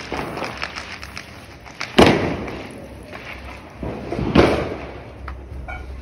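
Firecrackers going off: a sharp bang about two seconds in, and a second bang that swells to a peak a little past four seconds. Each leaves a fading echo.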